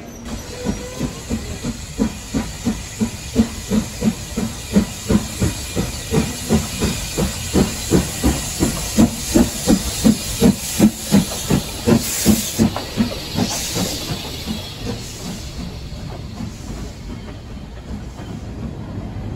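Steam locomotive working a freight train past, its exhaust chuffing at about two and a half beats a second and growing louder as it nears. About twelve seconds in the chuffs give way to a burst of steam hiss, then the wagons roll by with a quieter rumble.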